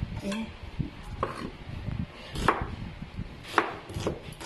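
A kitchen knife slicing a red onion, the blade knocking down onto the cutting board at an uneven pace, roughly once a second, with two strikes louder than the rest.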